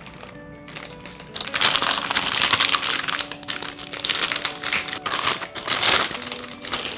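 Packaging crinkling and rustling loudly as computer parts are unboxed and handled, in long stretches from a second or so in until near the end. Soft background music runs underneath.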